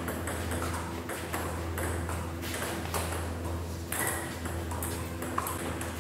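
Table tennis rally: the ball clicking off the paddles and the table in quick, irregular succession. A steady low hum runs underneath.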